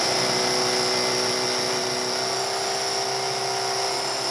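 Hammer drill boring a 3/4-inch hole into concrete for a tie-down rod, running steadily with a high whine.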